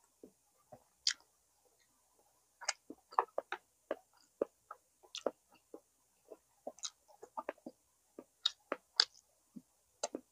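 Close-miked chewing of barbecue pork baby back ribs, with irregular mouth clicks and smacks several times a second.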